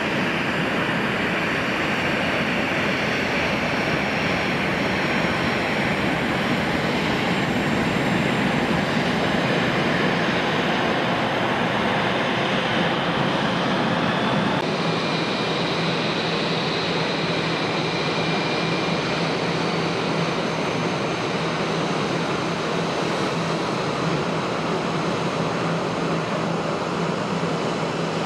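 Airbus A320-232's IAE V2500 jet engines running as the airliner rolls out along the runway after landing, a steady roar. About halfway through the sound changes abruptly to the engines idling as the jet taxis, with a faint high whine over a steady hum.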